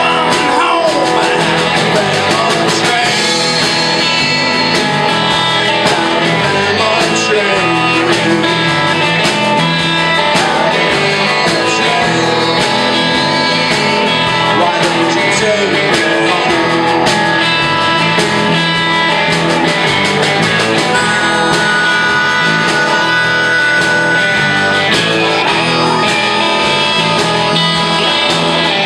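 Live band playing a blues number at full volume: electric guitars, bass guitar and a drum kit keeping a steady beat.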